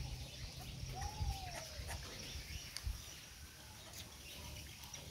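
A short animal call that rises and falls in pitch about a second in, with small sharp clicks and low handling rumble around it.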